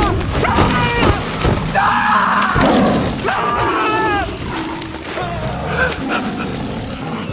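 Men shouting short, high, pitch-bending cries in a chase, over background film music.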